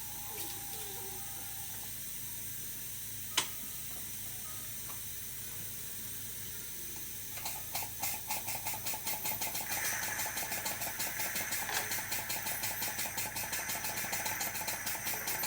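Steady hiss of dental suction with a single sharp click about three seconds in. About halfway through, a fast, evenly repeating mechanical clatter from dental equipment starts and keeps going.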